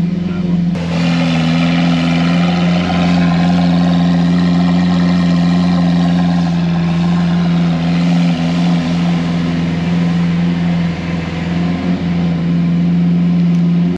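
Lamborghini Aventador LP700-4's 6.5-litre V12 idling steadily through its exhaust. About a second in, with a selected exhaust sound mode, the note turns suddenly louder and harsher, then holds.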